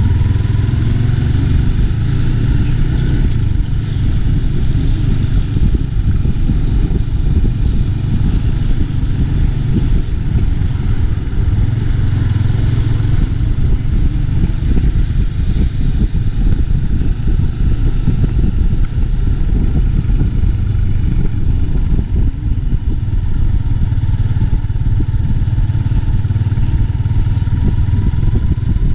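Yamaha Y15ZR's 150 cc single-cylinder four-stroke engine running steadily as the motorcycle rides along at low street speed, with a loud, fluttering rumble of wind on the chest-mounted microphone.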